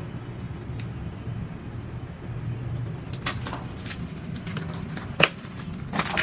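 Sharp clicks and knocks of plastic PPR pipe fittings being handled and fitted, a couple a little past the midpoint and a louder one near the end, over a steady low hum.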